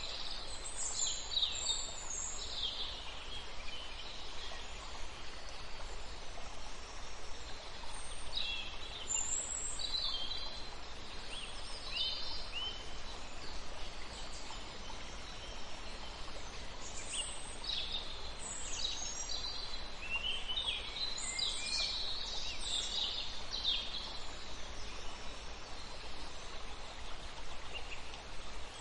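Birds chirping and calling in several spells of short, high calls, the busiest about three-quarters through, over a steady background hiss.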